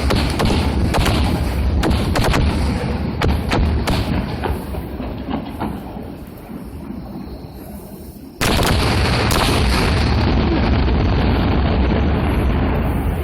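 Aerial fireworks going off: a rapid string of sharp bangs and crackles over a heavy booming rumble, thinning out over the first half. About eight seconds in, a loud steady rumble starts suddenly.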